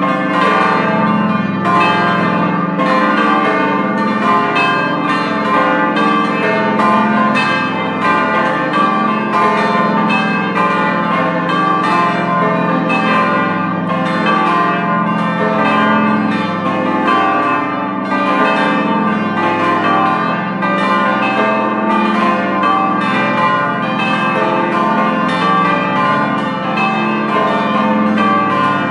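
A peal of large church bells, the eight-bell bell gate ringing together: continuous overlapping strokes over a sustained low hum.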